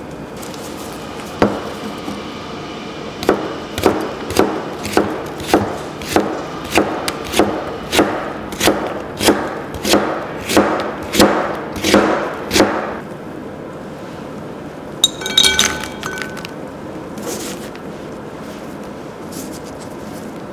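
Chef's knife julienning sliced Korean radish on a cutting board: a single chop, then a steady run of about sixteen even chops, roughly one and a half a second, that stops partway through. A short clinking clatter with a ringing note follows as the strips go into a glass bowl.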